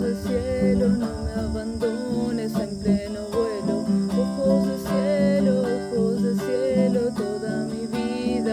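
Acoustic guitar playing an instrumental passage, with crickets or other insects chirring steadily in the background.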